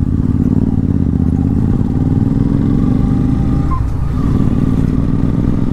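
Motorcycle engine running at a steady highway cruise, a loud, even low drone that wavers briefly about four seconds in.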